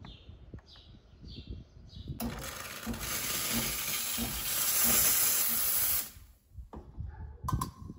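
Saeco SE50 espresso machine's steam wand opened into the air: a loud, even hiss of steam that starts about two seconds in and cuts off sharply about four seconds later, purging the wand before milk steaming. A few faint, evenly spaced chirps come before it, and a few clicks near the end.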